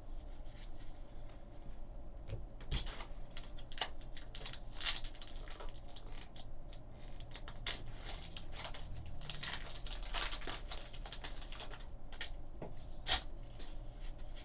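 A trading-card pack wrapper being torn and crinkled, with cards rustling and flicking against each other as they are flipped through by hand. A run of quick crackles and rustles, thickest through the middle, with one sharper snap near the end.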